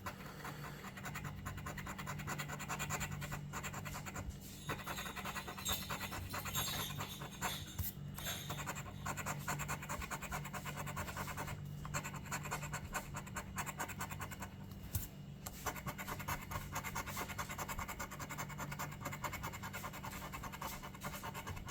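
Rapid scraping as the coating is scratched off a scratch-off lottery ticket, in quick strokes broken by a few brief pauses.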